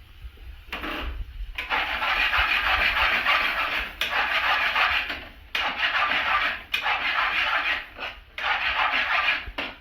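Chicken tikka pieces sizzling in a hot pan of fried onions, spices and oil, starting about a second and a half in and going in surges with short dips.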